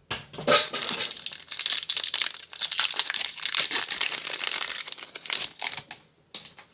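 Foil wrapper of a Pokémon TCG Darkness Ablaze booster pack being torn open and crinkled by hand, a dense crackling that stops about six seconds in.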